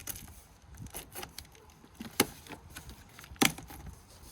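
Cardboard box being opened and its contents handled: soft rustling and scraping, with two sharp clacks, one about two seconds in and one about three and a half seconds in.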